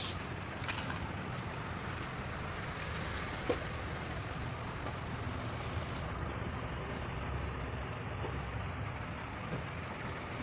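Steady low rumble and hiss of background noise, with a single sharp tap about three and a half seconds in.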